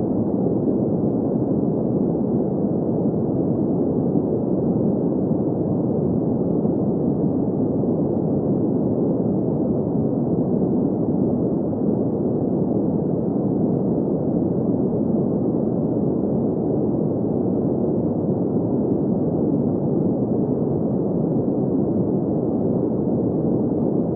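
Steady green noise for sleep: an even, unbroken rush of noise that sits low to mid in pitch, with no hiss in the highs.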